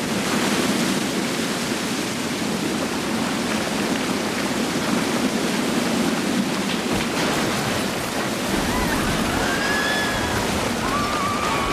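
Volcanic mudflow (lahar) rushing down a channel: a steady, dense roar of churning water and mud. Thin, wavering high whistling sounds come in over it in the last few seconds.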